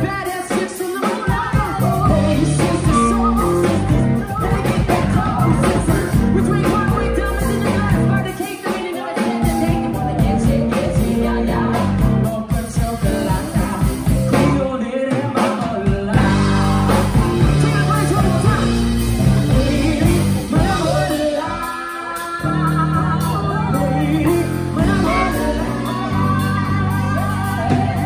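Live band playing: women's voices singing into microphones over electric guitar, electric bass and drum kit, amplified through the PA.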